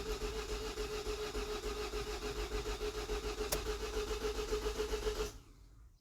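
The 2017 Ford Transit's 2.0L EcoBlue diesel is turned over by its starter motor without firing: a steady starter whine with an even beat of compression strokes, which stops about five seconds in. It is a crank-no-start that the mechanic suspects comes from a broken cam belt or one that has shed its teeth.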